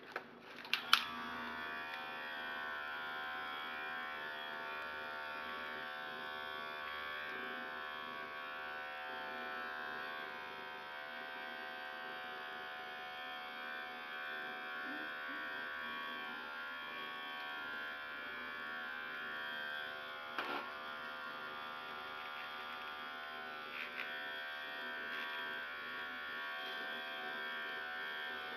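Small handheld electric massager buzzing steadily as it is held against a cat, with a few sharp clicks about a second in and again near twenty seconds.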